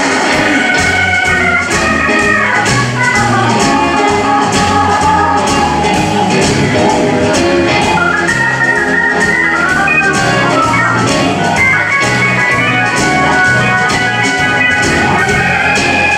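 Live blues band with an electric organ sound played on a Nord Stage keyboard carrying the lead, over a steady drum beat and bass.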